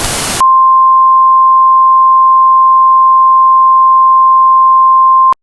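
A short burst of static, then a steady electronic test tone of a single pitch near 1 kHz held for about five seconds, cutting off abruptly with a click near the end.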